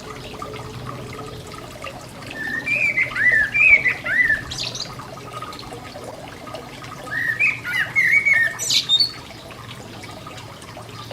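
A songbird sings two warbled phrases of slurred notes a few seconds apart, each ending in a brief high twitter, over the steady splashing of a garden fountain.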